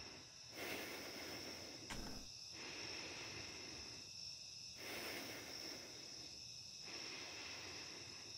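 Faint background noise: a steady high-pitched whine under a soft hiss that swells and drops about every two seconds.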